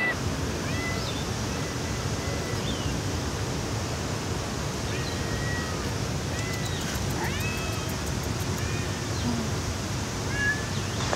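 Steady rush of a river's rapids and small waterfall, with a few faint, short high chirps and whistles scattered over it.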